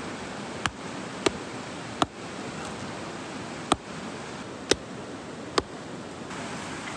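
Wood campfire crackling: six sharp, separate pops spread unevenly over a steady hiss.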